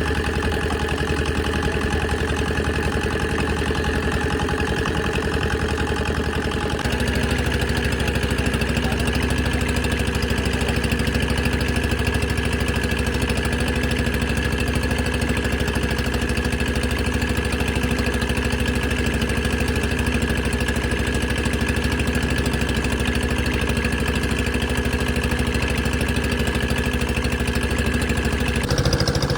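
An engine running steadily, with its speed stepping up and getting slightly louder about seven seconds in, then changing again near the end.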